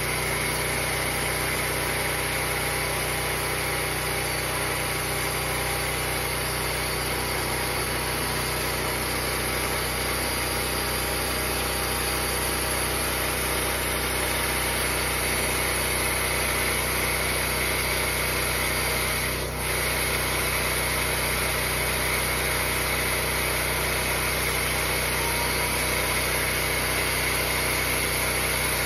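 The small gasoline engine on a homemade sawmill running steadily at high speed as the mill cuts a log. There is a brief dip in the sound about two-thirds of the way through.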